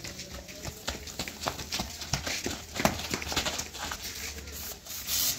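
Quick running footsteps on a packed dirt lane, flip-flops slapping, in an irregular patter of footfalls. A brief rushing scrape comes near the end.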